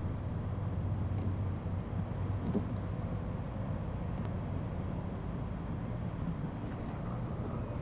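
A steady low mechanical hum, like a motor running, with a brief rising whine about two and a half seconds in.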